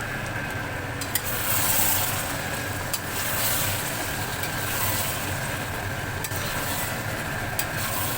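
Potatoes and spice paste sizzling and frying in a large kadai as they are stirred, with a few sharp clicks against the pan.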